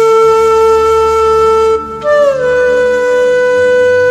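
Background music: a slow wind-instrument melody of long held notes over a low drone, a new note entering about two seconds in and sliding down in pitch.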